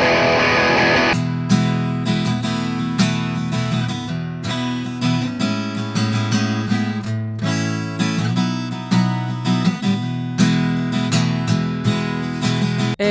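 Electric guitar played through an Orange speaker cabinet, cut off about a second in, then a steel-string acoustic guitar strummed and picked in a rhythmic chord pattern, each stroke sharp and left ringing.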